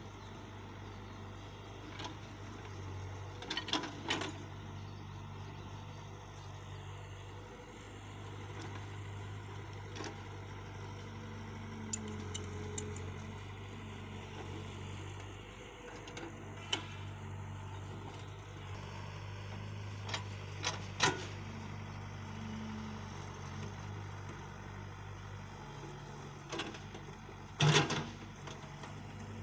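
Excavator engine running steadily with a low hum, with a few short sharp knocks, the loudest near the end.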